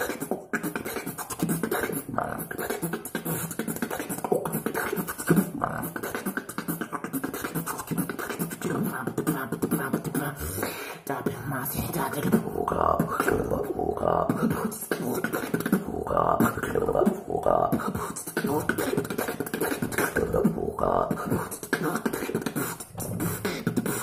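Solo human beatboxing, a continuous fast run of sharp percussive mouth hits, performed close on a small earphone-cable microphone.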